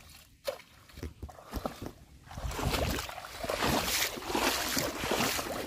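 A few small splashes and drips of water, then, about two and a half seconds in, continuous splashing of legs wading quickly through shallow river water.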